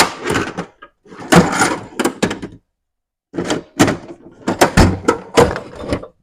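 Repeated clanks, knocks and clatter of hand tools and metal parts being handled and set down, in three bursts with short pauses between.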